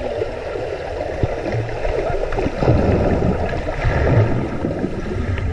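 Pool water churning and bubbling, heard muffled through a camera held underwater while paddlers and cardboard boats stir the water above. The noise is dense and irregular, with a couple of louder swells in the middle.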